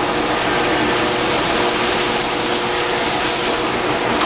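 Drill press running with its twist bit boring slowly through a wine cork, fed slowly so the cork doesn't tear, then drawn back out near the end. A steady whir of dust extraction runs underneath.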